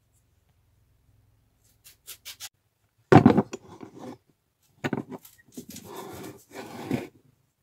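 Rusty metal parts handled on a wooden workbench and worked in a bench vise: a few light clicks, a heavy metal clank about three seconds in, then knocks and a scraping rattle as the vise is turned.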